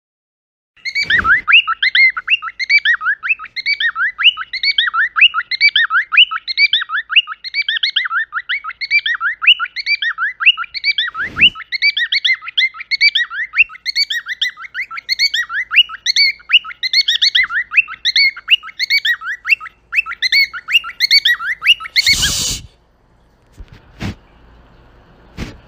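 A bird chirping rapidly and without a break for about twenty seconds, the same short call repeated over and over. Near the end the chirping stops and a short loud rustling burst follows, then a couple of faint clicks.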